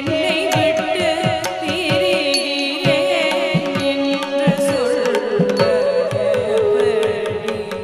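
Carnatic vocal music for a Bharatanatyam padam: a singer's slow, ornamented melody, wavering around each note, over a steady drone, with short percussion strikes.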